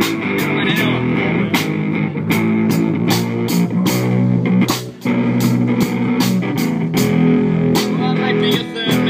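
Live band playing guitar over drums with a steady beat, an instrumental stretch with no singing.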